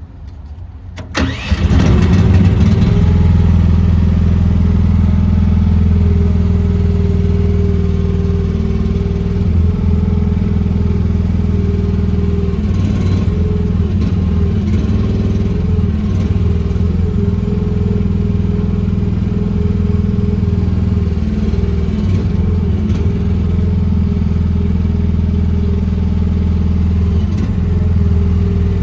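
The small gasoline engine of a Lanty LAT-13S mini excavator is cranked briefly and catches about a second and a half in, then runs steadily at a constant speed.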